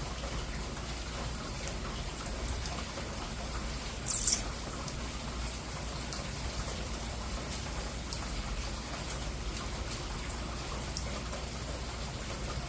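Steady rain falling, with individual drops tapping now and then and one louder, sharper drop or splash about four seconds in.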